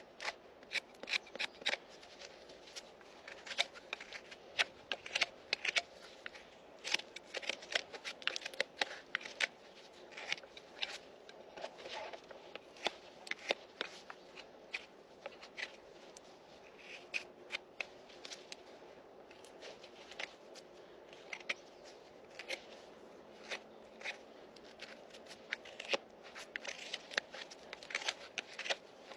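Farrier's hand tools trimming a Shire horse's hoof: quick, irregular crisp scraping and snipping strokes into the horn, several a second, with short pauses.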